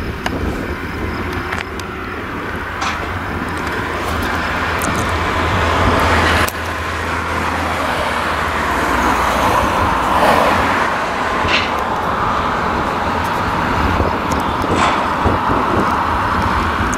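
Farm tractor engines running steadily, with a swell that rises and falls about ten seconds in and a sudden drop in level at about six and a half seconds.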